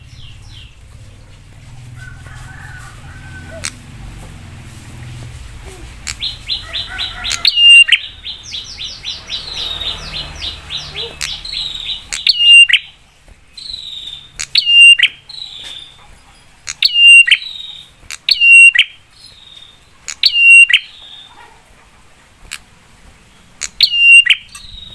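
Prinia (prenjak) calling: a fast run of high, evenly spaced notes through the middle, then loud sharp call notes repeated every second or two.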